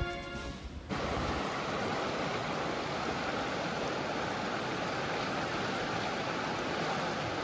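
A river rushing steadily over a rocky bed, coming in suddenly about a second in as background music fades out.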